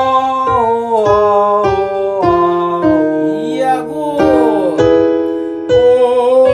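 Singing vocalise exercise with piano accompaniment: sustained sung notes stepping down a scale about every half-second. Near the end the exercise starts again higher, the voice held with vibrato.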